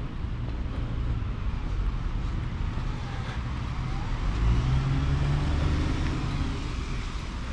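Outdoor street ambience with a motor vehicle's engine going by, its low hum loudest about halfway through.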